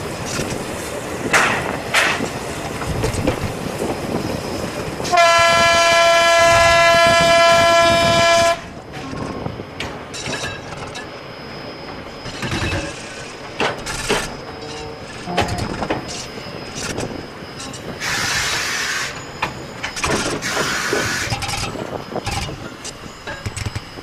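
A narrow-gauge locomotive gives one long, steady whistle blast of about three seconds, starting about five seconds in and cutting off sharply. Before and after it, the train's carriages rattle with irregular knocks and clatter.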